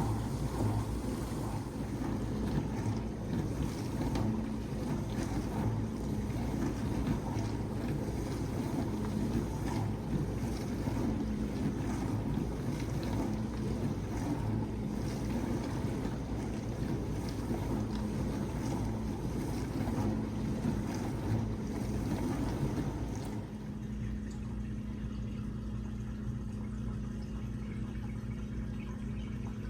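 GE Select GSD3732D01WW dishwasher running: a steady rush of water spraying inside the tub over a motor hum. About 23 seconds in the spraying stops and a steady pump hum carries on alone.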